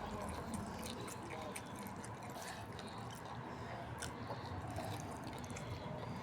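Faint, wet mouth clicks of someone chewing quietly, scattered irregularly over a low steady background hum.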